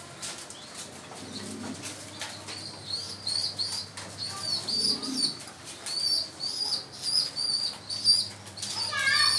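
Birds in a fancy-pigeon loft: wings flapping among the cages, and from about three seconds in a run of short high chirps, roughly two a second.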